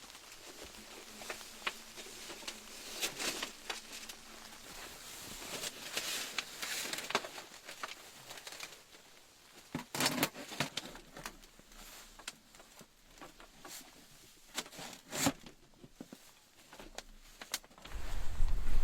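Quiet close handling noise: scattered soft clicks and rustles, with sharper knocks about ten and fifteen seconds in.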